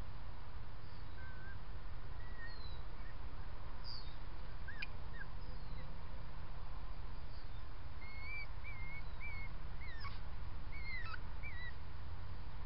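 Small birds chirping in short, scattered calls, more often in the second half, over a steady low background noise.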